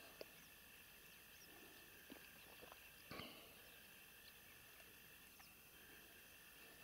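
Near silence of calm outdoor air: a faint steady high-pitched drone, with a few faint ticks and knocks, the loudest about three seconds in.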